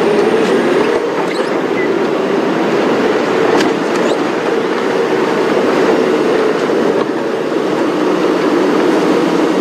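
Safari game-drive vehicle's engine running steadily as it drives over rough ground, with a steady hum and a rumbling noise.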